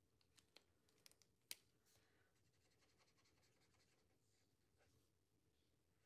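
Near silence with a few faint sharp clicks in the first second and a half, the loudest about a second and a half in. After that comes the faint scratch of an Ohuhu alcohol marker's nib colouring on paper.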